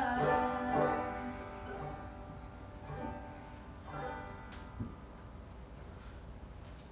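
Banjo playing the closing notes of a song: a few single plucked notes about a second apart, each ringing out, growing fainter until the sound dies away after about five seconds.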